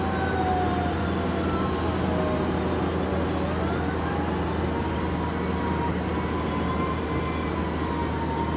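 Steady road and engine noise heard from inside a car cruising on a highway, a constant low hum with a faint whine that slowly rises and falls.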